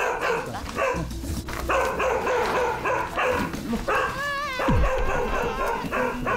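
A dog barks repeatedly and without let-up, a quick run of short barks about twice a second. It is alarm barking at a stranger in the house, which the trainer reads as fearful rather than aggressive.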